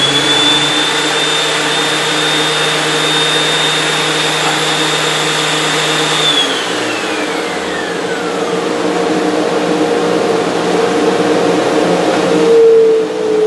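Oliver 1044 benchtop planer running with a steady high whine, then switched off about six seconds in, the whine falling away as the Shelix cutterhead coasts down. A dust collector runs underneath, its hum sinking in pitch near the end.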